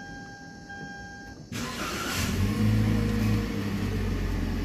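Toyota Rush's 1.5-litre four-cylinder engine started about a second and a half in, catching at once. Its revs flare briefly, then settle into a steady idle.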